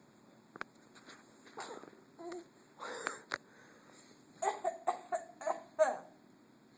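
A child fake coughing: a string of short, wheezy put-on coughs, scattered at first and then a quick run of four or five in the second half.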